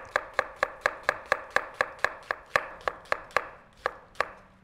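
Shun chef's knife slicing a halved onion with the grain on a wooden cutting board: quick, even knocks of the blade through the onion onto the board, each with a short ring, about four a second. Near the end the strokes slow to two last cuts, then stop.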